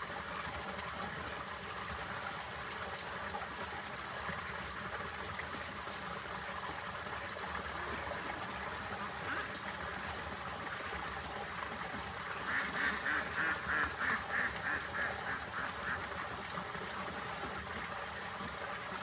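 Domestic duck quacking in a quick run of about a dozen quacks, about four a second, two thirds of the way in, over a steady hiss.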